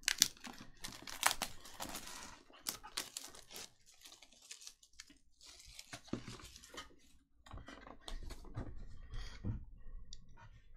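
Hands unwrapping and handling a cardboard hockey-card hobby box: a dense run of sharp crinkling and tearing in the first couple of seconds, then scattered clicks and rubs as the box is turned over. Near the end, more rustling and light knocks as a utility knife is worked into the box flap.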